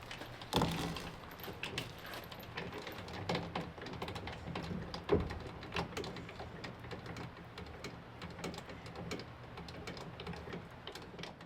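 Scattered light knocks and clicks, a few louder ones near the start and about five seconds in, over a faint low steady hum.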